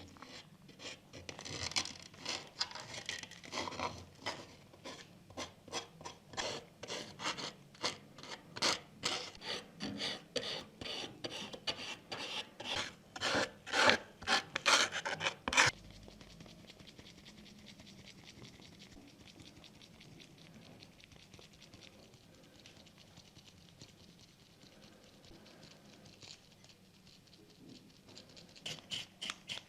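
A small part rubbed by hand with an abrasive, in quick back-and-forth scraping strokes of about two to three a second. About halfway through the strokes stop and a fainter, finer rubbing follows, and the stroking starts again near the end.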